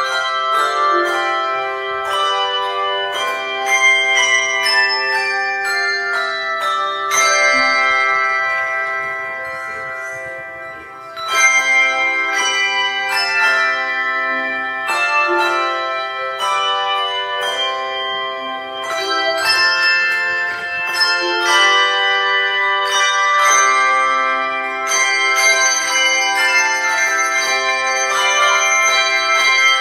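A handbell choir playing a tune in full chords, the bells struck together and left ringing. About ten seconds in the ringing fades down, then the playing comes back in with a sharp, loud chord.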